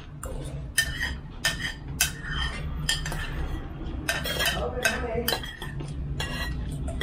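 Metal spoons clinking and scraping against ceramic plates and bowls during a meal, many short irregular clinks. A steady low hum runs underneath.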